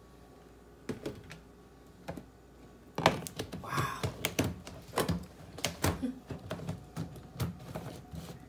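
Plastic clicking and knocking as a personal blender's blade base is fitted and screwed onto a filled blender cup: a couple of single taps, then a quick run of clicks and knocks from about three seconds in. The blender motor is not running.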